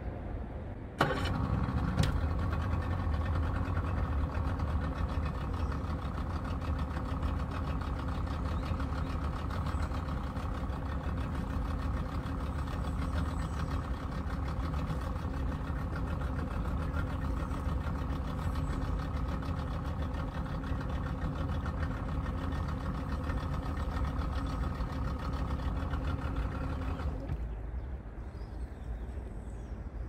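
A fishing boat's motor starts about a second in, runs steadily with a constant hum and a low rumble, and cuts off a few seconds before the end.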